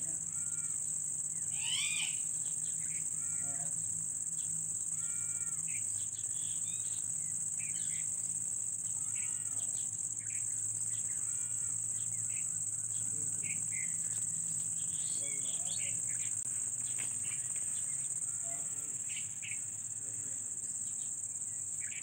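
Steady high-pitched drone of insects in chorus, with short bird chirps every second or two and a louder rising bird call about two seconds in.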